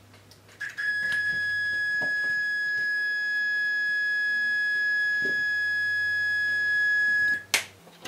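Steady high-pitched test tone from a breadboard sine wave generator, heard with the transistor amplifier bypassed. It starts about half a second in, holds one unchanging pitch with faint overtones, then cuts off abruptly near the end, followed by a click.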